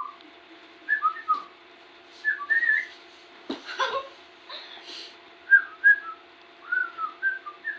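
A young puppy whimpering: a string of short, high-pitched whines that rise and fall, over a steady low hum, with a brief noise about three and a half seconds in.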